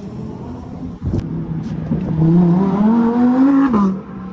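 A car engine accelerating hard, its pitch rising steadily for about a second and a half and then dropping, cut off abruptly near the end. A single thump about a second in.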